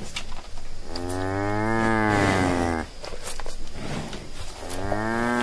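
A large farm animal calling: one long call of nearly two seconds about a second in, and another starting near the end.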